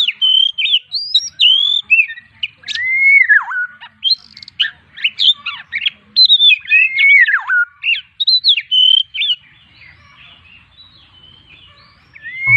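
White-rumped shama (murai batu) singing a rapid, varied run of loud whistled phrases, with sweeping up-and-down notes and quick chirps. The song breaks off after about nine seconds and a last phrase comes near the end.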